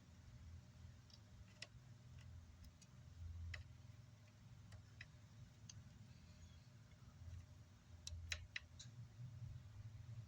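Faint, scattered small clicks and taps of hand tools against an amplifier circuit board, over a low steady hum, with a quick run of several louder clicks about eight seconds in.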